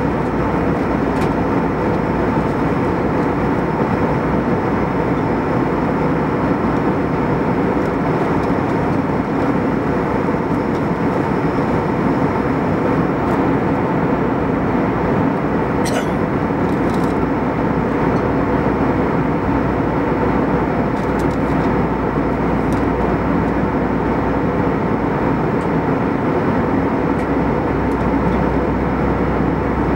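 Airbus A320 cabin noise in cruise: a steady rush of airflow and engine drone heard from a window seat near the wing, with a faint steady hum of tones in it. A few faint clicks come about halfway through.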